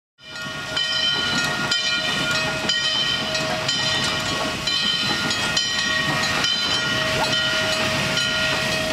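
Steam locomotive's bell ringing about once a second over a steady hiss of steam as the train moves.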